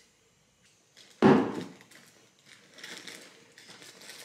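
A single heavy thump about a second in, then soft rustling and shuffling of items being handled in a duffel bag, growing toward the end.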